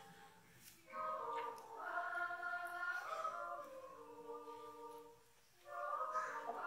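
Children's yodel choir singing unaccompanied in several parts, in phrases with short breaths between them, about half a second in and again near the end.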